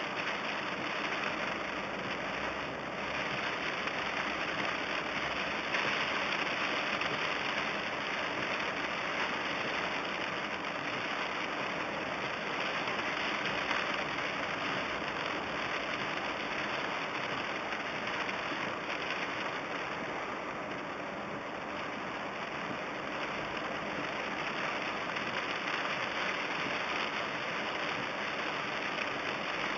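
Heavy rain falling on a car's roof and windshield, heard from inside the car as a steady hiss.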